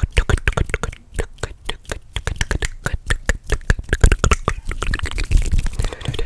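Fast ASMR mouth and hand sounds made close to the microphone: a rapid, irregular run of clicks and pops, several a second, with low thuds mixed in.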